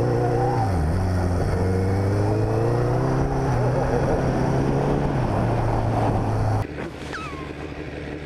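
Honda CBR1000RR sportbike's inline-four engine running under load on a dirt track, its revs climbing and stepping as the rider pushes on. About two-thirds of the way in the sound drops suddenly to a quieter, steady running.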